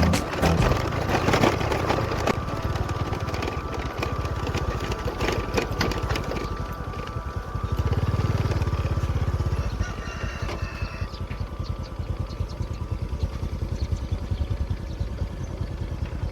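A small motor running with a fast, even buzz, getting louder for about two seconds midway and then dropping back.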